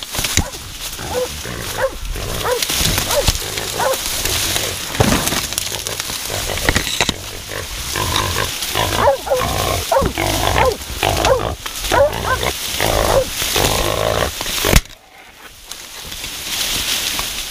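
Wild boars squealing and grunting in a dense run of short calls, thickest in the second half. Near the end a single sharp, loud crack is followed by a sudden drop in level.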